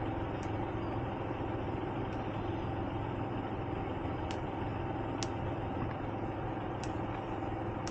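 Car engine idling steadily, heard from inside the stopped car, with a few faint clicks scattered through.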